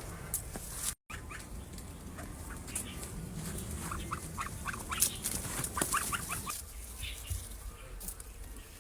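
Chickens clucking, with a quick run of short calls in the middle.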